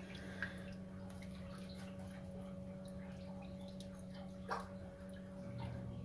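Faint steady hum of a small water pump in a reservoir system, with water dripping and a couple of soft ticks. A lower hum joins in near the end.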